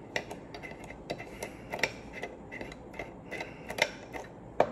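Light, irregular metallic clicks and ticks from a small hex-driver front sight tool working against a Glock pistol slide, with a sharper click near the end.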